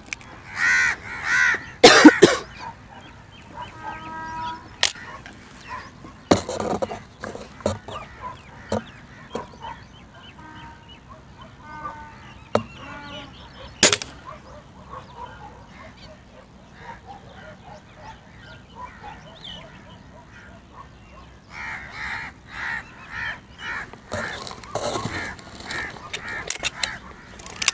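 A single shot from a break-barrel spring-piston air rifle about halfway through: one sharp crack. Birds call loudly at the start, on and off in the middle and again near the end. Shortly before the end the rifle's barrel is broken open to cock it for the next pellet.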